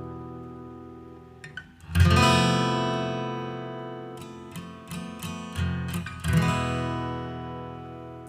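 Background music on acoustic guitar: strummed chords left to ring out and fade, with a few single plucked notes between them.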